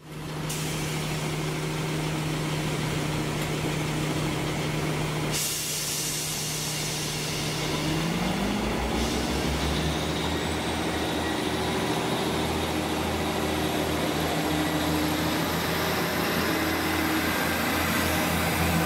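A Great Western Railway Networker Turbo diesel multiple unit at the platform, its diesel engine running steadily and then revving up about eight seconds in as the train pulls away, with a high whine that climbs in pitch over the following seconds. The train noise grows louder near the end as carriages run close past.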